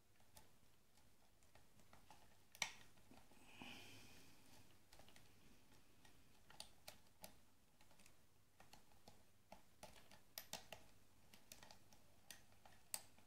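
Lock pick and tension wrench working the pins of a repinned ABUS rim cylinder: faint scraping with scattered small, sharp clicks of the pins, the loudest about two and a half seconds in.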